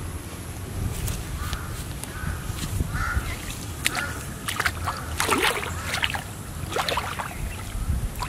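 Several short, harsh bird calls over a low steady rumble, with water sloshing and splashing as a person wades into a shallow weedy pond.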